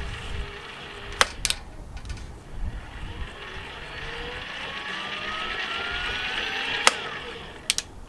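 eFoldi mobility scooter's front hub motor spinning the raised wheel, which is being run to spread Slime sealant around inside the new inner tube. It makes a steady whir with an electric whine that rises in pitch over a few seconds and then cuts off with a click near the end. A few other sharp clicks sound early on and at the end.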